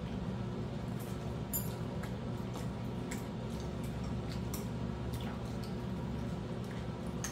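Scattered light clicks and taps of metal chopsticks and a spoon against ceramic tableware as someone eats, over a steady low background hum.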